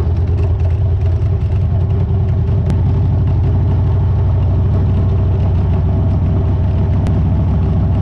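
Motorcycle engine running steadily at low speed, with an even pulsing exhaust note.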